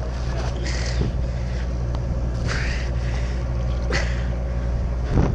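Motorboat engine running steadily with a low hum, with a few short bursts of hiss about a second and a half apart.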